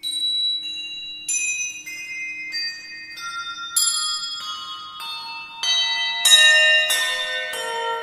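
Bells struck one after another, about one every half second or so, stepping down in pitch from high to low, each note ringing on under the next.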